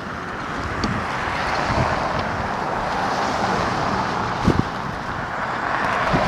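Blizzard wind gusting hard against the microphone, a steady rushing that swells and eases, with a few short low thumps.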